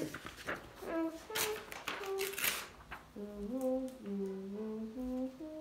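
A child humming a wordless tune, short held notes stepping up and down in pitch. Rustling handling noise from about a second to two and a half seconds in.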